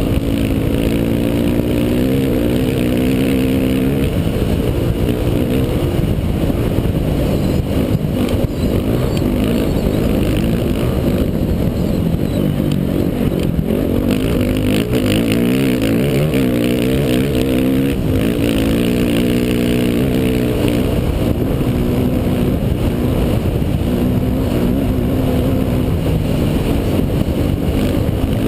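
Dirt bike engine running hard at speed, its revs repeatedly climbing and dropping back as the rider works the throttle and gears, heard from a helmet-mounted camera with wind and rough-ground rumble underneath.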